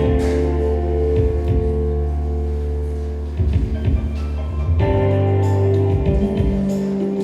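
Live band playing without vocals: held organ-like keyboard chords over bass, with drum hits, changing chord about five seconds in.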